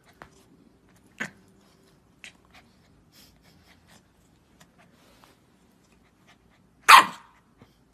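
A few short, sharp noises from a Chow Chow puppy, the loudest and longest near the end.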